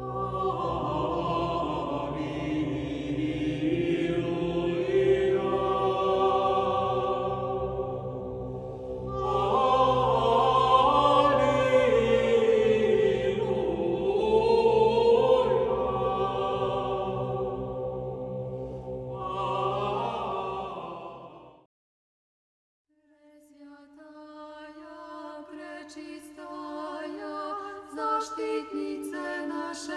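Orthodox church chant: voices sing a slow, drawn-out line over a steady low drone. It breaks off about two-thirds of the way through, and after a second of silence another chant starts with higher voices.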